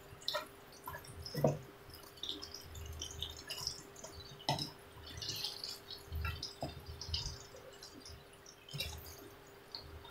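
Breaded eggplant strips deep-frying in hot oil in a wok: irregular crackling and popping of sizzling oil, with a few knocks as a wooden spatula turns the pieces.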